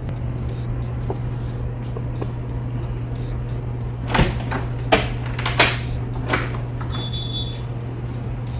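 Four sharp knocks about two-thirds of a second apart, from work on a spring-loaded door hinge as its tension is adjusted, over a steady low hum.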